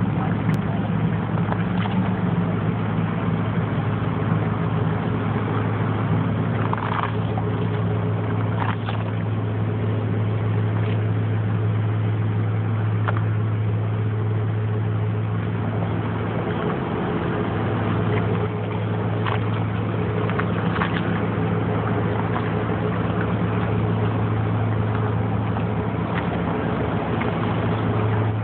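A moored paddlewheel riverboat's engine running steadily, an even low hum. A few faint clicks sound now and then.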